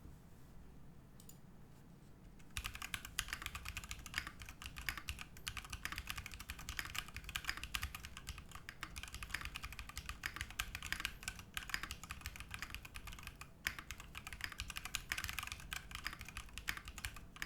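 Fast typing on a custom Joy65 mechanical keyboard with stock Zaku switches, an aluminium plate with plate foam, and Yongqiu keycaps. A dense, continuous run of keystrokes starts about two and a half seconds in.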